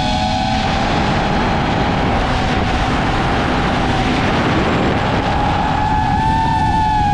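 DJI FPV drone's motors and propellers whining at a high, nearly steady pitch. A broad wind rush covers the whine from about half a second in, and the whine comes through clearly again near the end.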